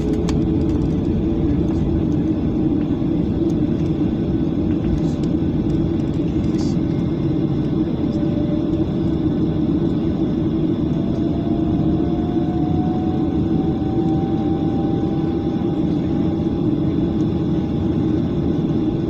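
Steady hum and rumble of a jet airliner's engines heard inside the cabin while taxiing, with a faint whine that slowly rises in pitch from about halfway through.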